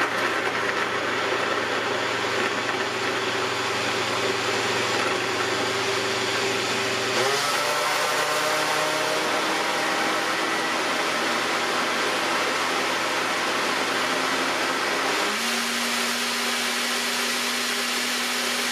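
NutriBullet Blender Combo's 1200-watt motor base running steadily, blending frozen berries and milk in the cup. Its pitch shifts at about seven seconds in and again at about fifteen seconds.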